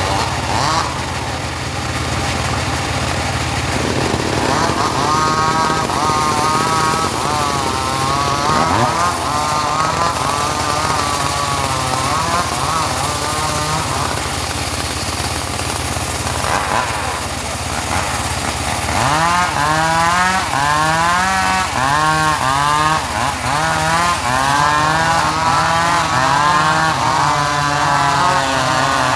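Engine-driven portable sawmill running and cutting teak, the engine's steady hum under a wavering, wobbling saw pitch in two long stretches, the second with the engine speed rising and falling under the load of the cut.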